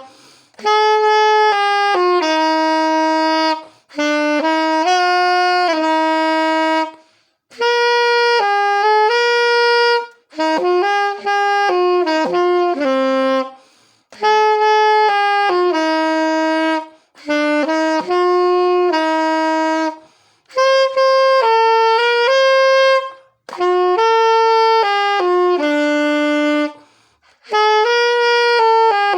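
Solo saxophone playing a slow hymn-like melody: phrases of held notes separated by short pauses for breath every few seconds.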